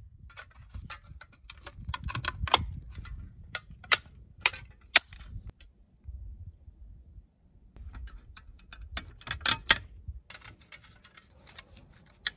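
Small stainless-steel stove door parts, a hinged fire-door plate and a rotary air-vent disc, clinking and clicking against each other as they are handled and fitted together. The sharp ticks come in two busy runs with a short lull in the middle.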